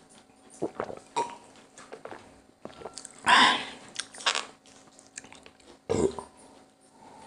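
A man sipping and swallowing cola from a glass, with small gulps and mouth clicks, and one loud breathy burst about three seconds in. A shorter, heavier burst comes near six seconds.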